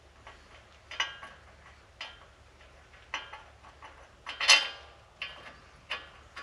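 Light metal clinks and rattles as hub bolts are started by hand into the back of a steering knuckle. They come roughly once a second, with a longer, louder clatter about halfway through.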